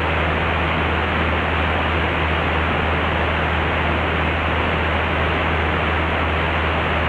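Mooney M20C single-engine plane in flight: a steady engine and propeller drone with a low hum under an even rushing hiss of cabin noise.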